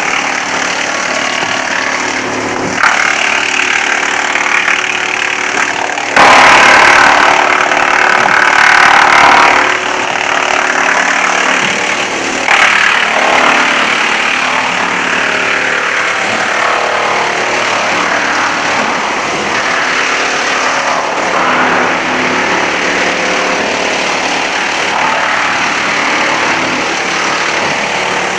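Wood chipper running steadily, with louder spells of chipping as wood goes through it. The loudest spell is from about six to nine and a half seconds in.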